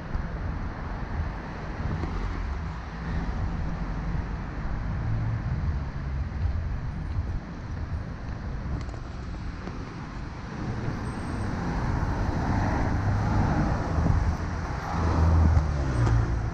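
City road traffic: cars driving past on a busy street, a steady noise that grows louder over the last few seconds.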